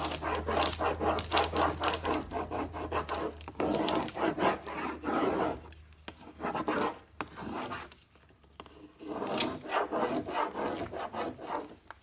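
Rub-on decor transfer being burnished onto a painted surface with an applicator: quick back-and-forth rubbing strokes in several bursts, with a short pause a little past the middle.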